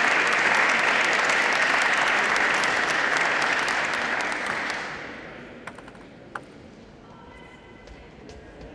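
Audience applauding in a large hall, the clapping fading out about five seconds in, followed by a few light taps in the quieter stretch.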